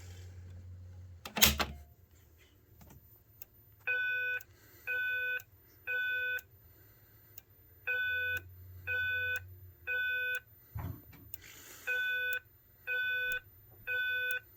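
System Sensor SPSW fire alarm speaker strobe sounding the Simplex voice evacuation alert tone. It is a temporal-three pattern: three short beeps, a pause, repeated three times, starting about four seconds in. This is the alert that comes before the recorded evacuation message. A single click sounds just over a second in.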